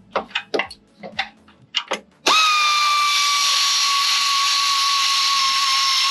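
A few sharp clicks, then about two seconds in a pneumatic air ratchet starts and runs steadily, a high whine over a hiss of exhaust air, as it runs in a bolt.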